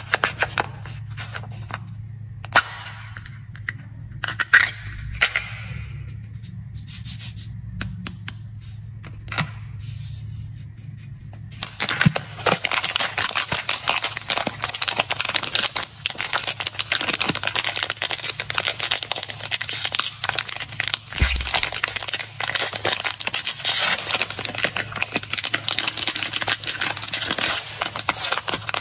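Scattered clicks and taps as a plastic gum-tape case is handled. About twelve seconds in, continuous crinkling and tearing of a foil-lined snack-cake wrapper being opened starts up.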